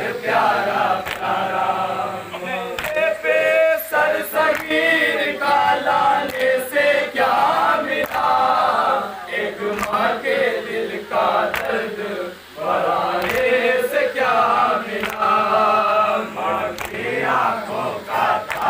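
Men chanting a Shia noha, an Urdu mourning lament, together in one voice around a lead reciter. Sharp beats come about once a second: matam, hands striking chests in time with the chant.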